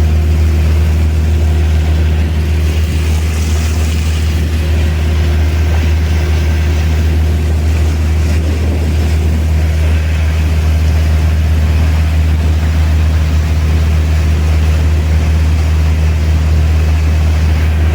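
Boat engine running steadily under way, a loud, unchanging low drone over a faint hiss.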